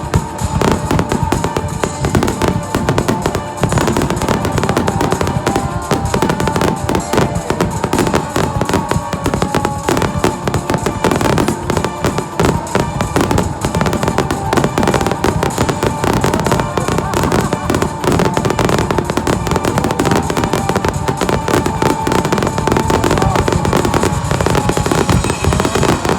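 Aerial fireworks bursting in a rapid, unbroken barrage of bangs and crackles, with music and some voices underneath.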